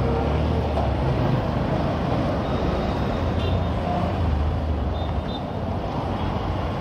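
Bajaj CT 125X's single-cylinder engine running steadily as the motorcycle rides at low speed through traffic, with road noise from the surrounding cars and trucks.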